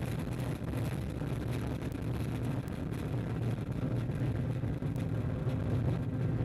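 Ariane 5 ES rocket climbing away after liftoff, its two solid rocket boosters and Vulcain 2 core engine making a steady, low, rough rumble.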